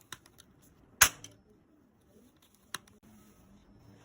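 Sharp mechanical clicks from a toy match gun: one loud snap about a second in, a smaller click near three seconds, and a few light ticks at the start.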